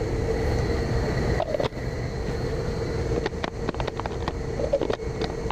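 Several sharp plastic clicks and knocks as the lid is pressed onto the chopper bowl of a hand blender, a couple about a second and a half in and a cluster around three to four seconds in, over a steady low rumble with a faint hum.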